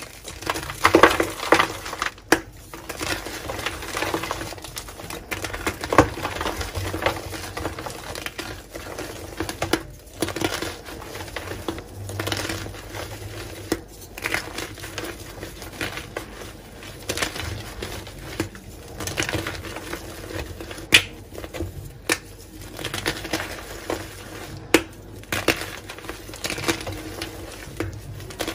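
Reformed gym chalk blocks being crushed and crumbled by hand: irregular dry crunching and crackling, with a sharp snap every so often as a block breaks.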